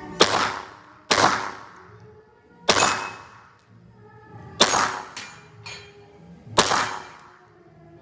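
Five single shots from a 9mm Glock 17 MOS pistol, fired one at a time at uneven intervals of one to two seconds, each with a short echo after it.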